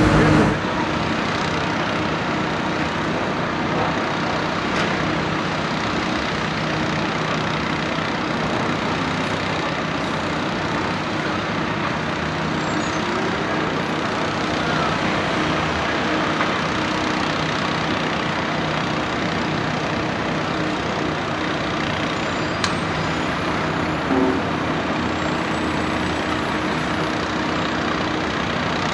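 Heavy diesel equipment running steadily, a low engine hum under a wide even wash of noise, with a brief knock about 24 seconds in.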